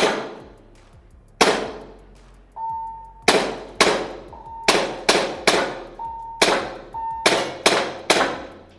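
SRC KL9A3 4.5 mm CO2 blowback pistol firing about eleven shots, each a sharp crack, spaced irregularly and coming faster in the second half. Between some shots an electronic target gives four short, steady beeps.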